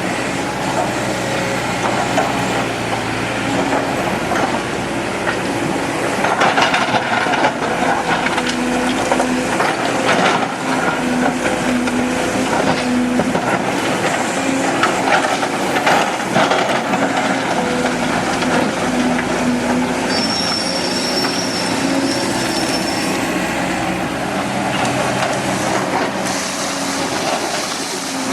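Excavator's diesel engine running under load, its pitch shifting as the hydraulics work, with occasional crunches of soil and rock against the bucket.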